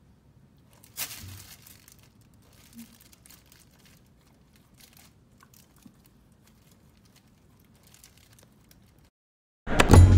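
A puppy chewing and mouthing a plush toy: soft rustling and small clicks, with a louder rustle about a second in. The sound cuts out about nine seconds in, and loud music starts just before the end.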